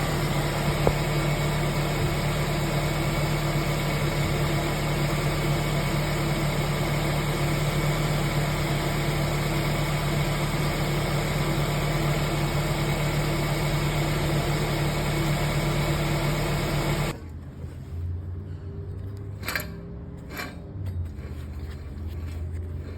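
Car running: steady engine and road noise with a low, even hum. About three-quarters of the way through it cuts off suddenly, leaving a quieter background with a few clicks.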